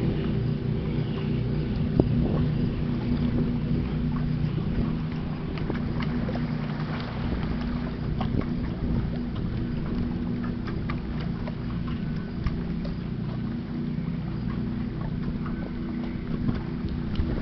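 A passing freighter's engine drones steadily across the water, a low hum with several steady tones, while wind buffets the microphone and small clicks come and go.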